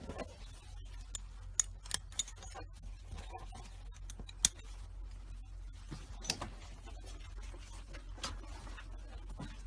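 Metal buckles of a child's safety vest and seat belt clicking as they are fastened, with the webbing straps rustling: three quick clicks about a second and a half in, the loudest a little over four seconds in, and a few fainter ones later. A steady low hum runs underneath.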